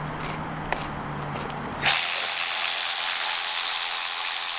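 Power ratchet wrench run freely, a loud steady whirring hiss that starts suddenly about two seconds in, over a faint low hum before it.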